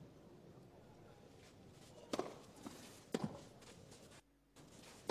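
Tennis ball struck by rackets in a rally on a clay court: a serve about two seconds in, the return about a second later, a fainter knock between them, and another shot near the end, over a quiet hush from the crowd.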